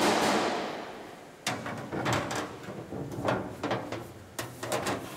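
Aluminium body panel being handled and fitted against a body form: a series of separate light knocks and clanks with a short ring, starting about a second and a half in and coming every half second to a second.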